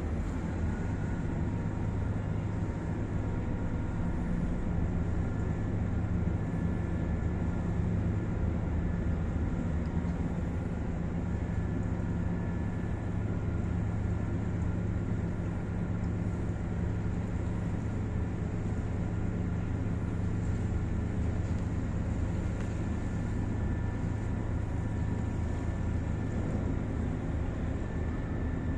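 Ferry's engines running with a steady low drone as the ship gets under way, with faint steady higher tones above it.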